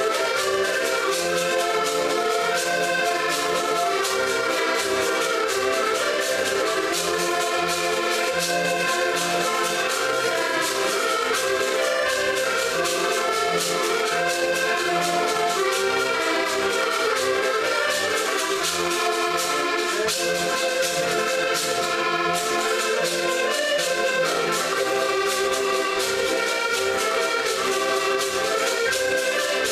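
A band of diatonic button accordions playing a lively Portuguese folk tune in unison, their sustained reedy chords carrying the melody. A small plucked string instrument and a notched wooden scraper keep a fast, even rhythm under them.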